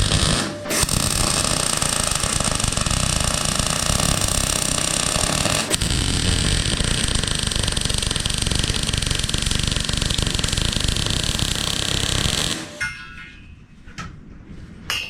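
MIG welder arc crackling steadily as a bead is laid, with a brief break about six seconds in, then cutting off abruptly near the end.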